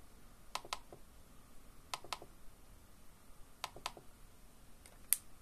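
Clicking of laptop keys and buttons: three quick double clicks spaced about one and a half seconds apart, then a single sharper click near the end.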